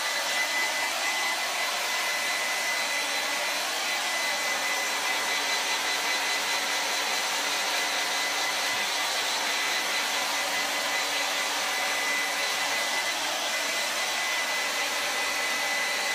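Handheld hair dryer blowing steadily on its fan, a thin high motor whine over the rush of air.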